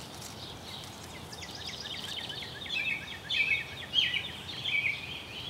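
A small songbird singing a rapid, jumbled run of high chirping notes over steady outdoor background noise. The song starts about a second and a half in and grows louder after about three seconds.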